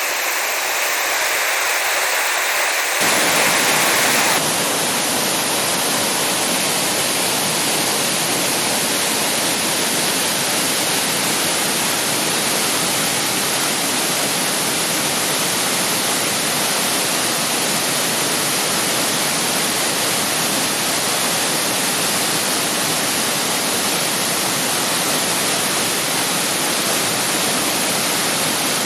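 Thi Lo Su waterfall's falling water rushing steadily. About three seconds in the sound gets fuller and deeper, briefly louder for a second or so, then holds even.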